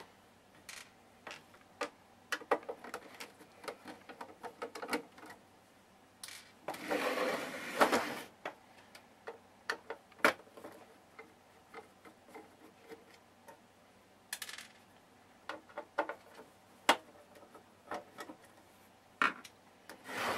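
Screws being backed out of the metal lid of an Icom IC-R7100 receiver with a Phillips screwdriver: scattered light clicks and ticks of the driver and screws. There is a brief louder rustle about seven seconds in.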